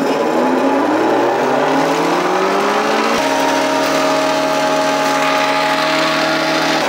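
Feed shredder (hammer mill) running through its 2 cm plate on the second pass of moringa branches and maize stalks, a loud mechanical hum over a noisy rush. Its pitch climbs steadily for about three seconds as it spins up, then switches suddenly to a steady higher tone.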